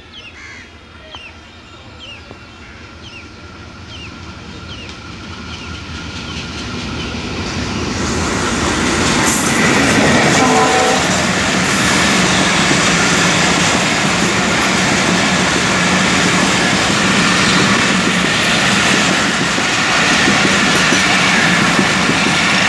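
Diesel-hauled passenger train approaching, growing louder over the first ten seconds, then its coaches running past close by with wheels clattering over the rail joints. A short horn sounds about ten seconds in as the locomotive goes by.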